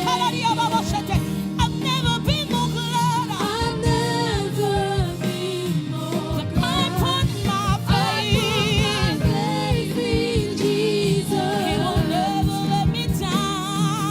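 Gospel choir and lead singer performing a worship song over a live band with drums, the voices sustaining long, wavering notes.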